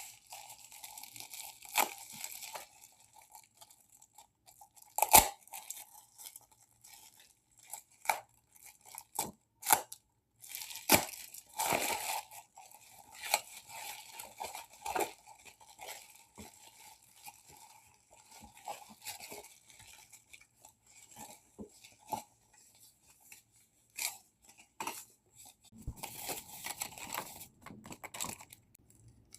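Parcel packaging being torn open and handled by hand: repeated tearing and crinkling with sharp clicks and knocks.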